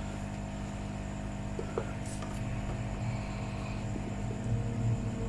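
Steady low electrical hum, with a couple of faint light ticks about two seconds in.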